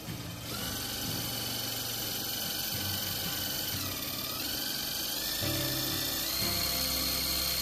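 Cordless drill driving a long screw through corrugated galvanized steel panelling and foam insulation into wood: a steady motor whine that starts about half a second in and sags in pitch around the middle as the screw bites, then picks back up. Background music plays underneath.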